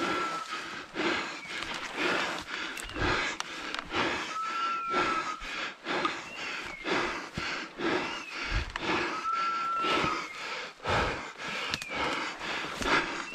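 Hunter's heavy breathing and footsteps crashing through dry grass and juniper brush on a steep slope. Over them, a dog's beeper collar sounds a steady half-second electronic beep about every five seconds, with short falling chirps in between.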